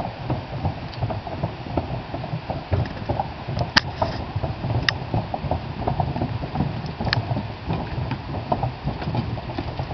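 Horses' hooves clopping on a wooden plank bridge as a string of saddle and pack horses walks across, an uneven run of knocks with three sharper clacks in the middle.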